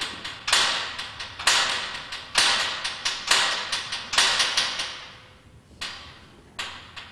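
Hammer blows on metal, about one a second, each ringing out with a long echo in the workshop hall, with lighter clinks between.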